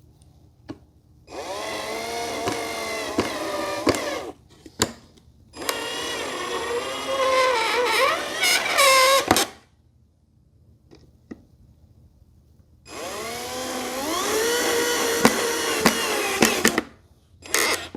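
Cordless drill driving screws into the shelf pieces in three runs of about three to four seconds, the motor's whine sagging in pitch as the screw bites and tightens, with a few small clicks between runs.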